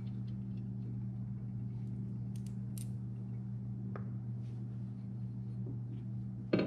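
A steady low mechanical hum, with a few faint metallic ticks and clicks as the loosened bolts of an excavator's hydraulic filter cover are taken out by hand; a sharper click comes near the end.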